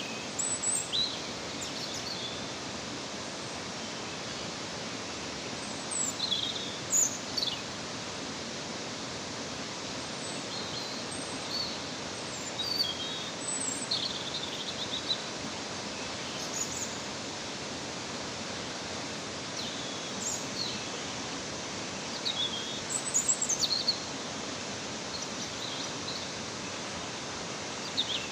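A waterfall rushing steadily, with short bird chirps and calls breaking in every few seconds.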